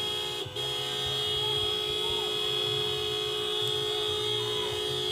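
Vehicle horn held down in one long continuous blast, cut off briefly about half a second in, then held steady.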